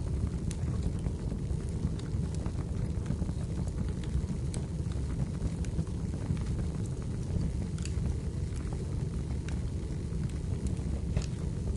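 Wood fire burning in a fireplace: scattered sharp crackles and pops over a steady low rumble.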